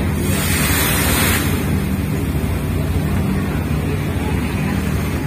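Steady low drone of a ship's machinery heard on deck, with wind on the microphone; a louder rush of wind noise starts about half a second in and lasts about a second.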